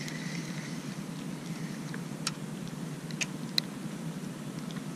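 Low, steady background noise on open water, with a few sharp ticks a little past two, three and three and a half seconds in.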